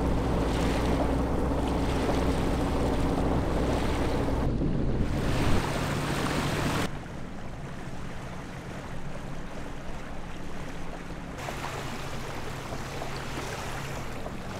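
Sailboat's inboard diesel engine running steadily under way, a low hum over wind and water noise. About halfway through the hum drops away and the sound turns quieter, mostly wind and water with only a faint engine drone left.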